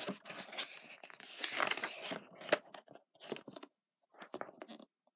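Pages of a paperback picture book being turned and handled: irregular paper rustling and crinkling with a few sharp clicks, the loudest about two and a half seconds in.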